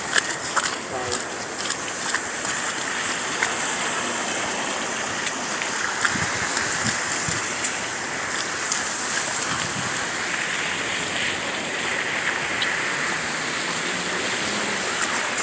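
Steady hissing outdoor noise, such as wind and snowy street ambience, with faint scattered ticks throughout.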